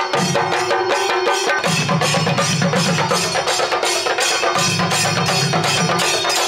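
Percussion-led music: fast, even drum strokes at about five or six a second over steady held tones, with a deeper part that comes and goes in phrases.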